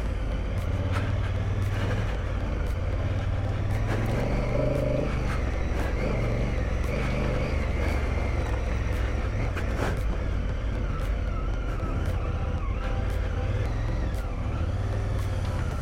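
Honda Africa Twin CRF1000L's parallel-twin engine running steadily as the motorcycle rides over a dirt track, with tyre and wind noise and scattered light knocks from the ride over rough ground.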